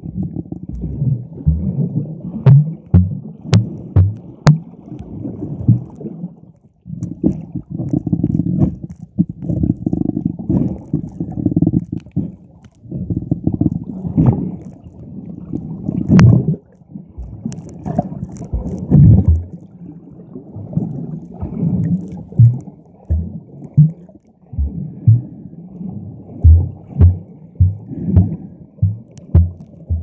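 Muffled underwater rumble and sloshing of sea water, heard through a microphone held below the surface, with many irregular low thuds and a few sharp clicks in the first seconds.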